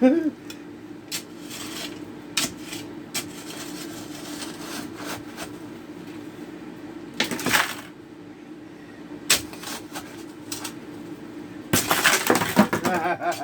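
Folding entrenching shovel's metal blade scraping and scooping damp, stony fill, with stones clinking, in scattered strokes, a longer scrape in the middle and a dense run of scraping near the end.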